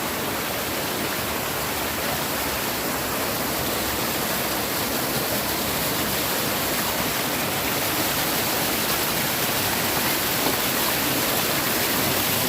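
Waterfall pouring into a jungle pool, a steady loud rush of falling water.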